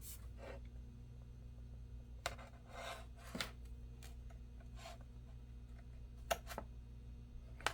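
Faint scattered clicks and light rubbing of hands pressing a replacement laptop LCD panel down onto its double-sided tape, over a steady low hum.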